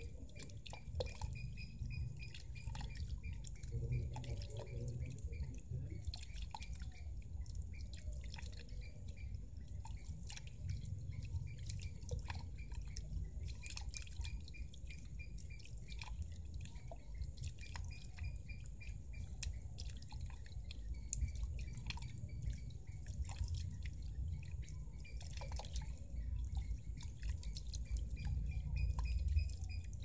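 Small solar-powered fountain's water jet falling into a shallow pond, splashing steadily with many scattered drips and plinks.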